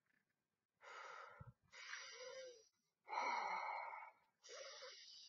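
A person imitating Darth Vader's respirator breathing: four raspy, wheezing breaths in and out, the third the loudest, with a brief low bump about a second and a half in.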